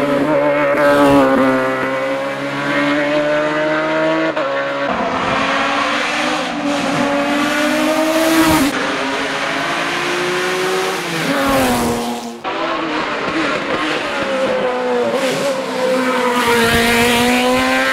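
Open-cockpit sports-prototype race car engines at high revs on a hill climb, the engine note repeatedly climbing, dropping and climbing again as the cars shift gears, lift for the bends and accelerate out of them.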